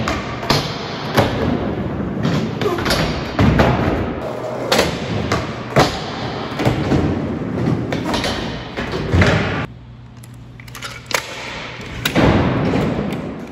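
Skateboard wheels rolling on a skatepark ramp and ledge, broken by many sharp clacks and thuds of the board hitting the ledge and landing. There is a brief quieter stretch about ten seconds in before the rolling and knocks pick up again.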